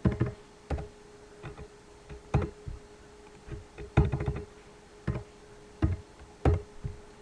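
Computer keyboard keys tapped in short irregular clusters while numbers are typed in, with a faint steady hum underneath.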